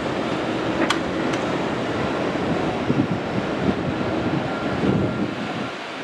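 Steady outdoor rushing noise with uneven gusts of wind buffeting the microphone. A sharp click comes about a second in, with a fainter one just after.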